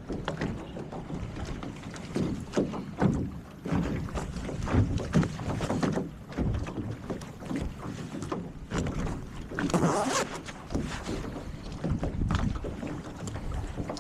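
Wind buffeting the microphone around a small sailboat in shallow water, with irregular knocks and splashy handling noises. A louder rush comes about ten seconds in.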